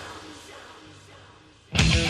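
Thrash metal recording at a short break: the band drops out and a faint low tone dies away, then the full band, with distorted electric guitars and drums, crashes back in suddenly near the end.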